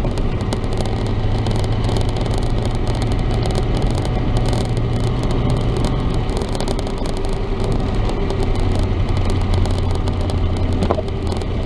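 Chevrolet S-10 pickup driving, its engine and road noise heard from inside the cab as a steady low drone. The drone eases for a moment past the middle, then picks up again.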